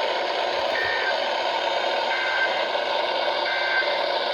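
Three short two-tone digital data bursts of the Emergency Alert System's SAME code, about a second and a half apart, over steady radio hiss from a weather radio broadcast: the end-of-message signal that closes the warning.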